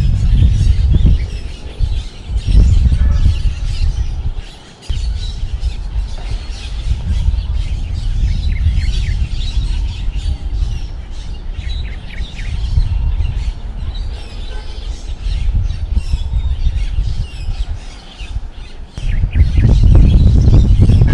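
Strong wind gusting against the microphone, a low rumble that eases about four seconds in and surges again near the end. Birds are chirping throughout.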